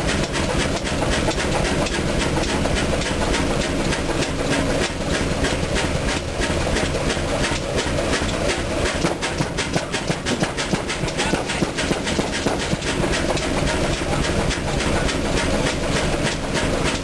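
1924 Chicago Pneumatic 50 hp horizontal diesel engine running steadily, with a fast, even run of clicks and knocks over its steady mechanical sound.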